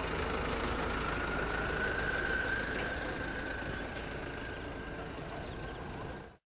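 90 mm electric ducted fan of an RC BAe Hawk jet running: a steady high whine over a rush of air, rising slightly at first and easing off a little past the middle.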